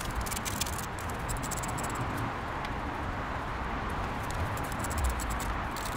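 Steady rustling and scraping close to the microphone while the fuel rail's 12 mm bolts are worked loose in the engine bay.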